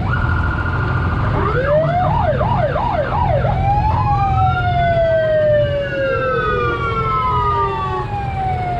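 Emergency vehicle siren at close range: a short steady tone, then about four quick rising-and-falling yelps, then a long wail that climbs and slowly falls in pitch. A low engine rumble runs underneath.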